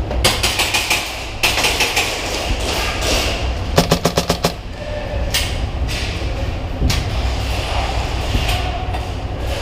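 Airsoft electric gun firing in bursts of rapid clicking shots, the clearest a quick string of about eight shots a little before halfway through, over a steady low rumble.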